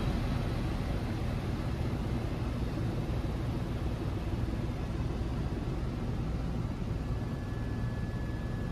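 Helicopter cabin noise in flight: a steady rumble of rotor and engine heard from inside the cockpit. A faint steady high tone joins in about seven seconds in.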